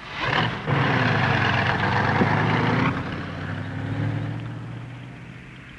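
Truck engine starting up and revving hard for about two seconds, then easing off and fading as the truck pulls away.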